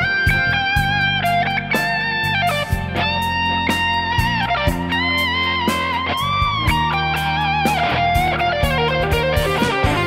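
Electric guitar playing a lead line through an amplifier, with long sustained notes, string bends and vibrato. Underneath are low held bass notes and a steady drum beat.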